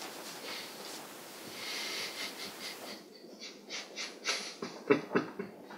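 A man's stifled laughter: breathy exhales that build into a run of short, louder puffs of laughter in the last couple of seconds.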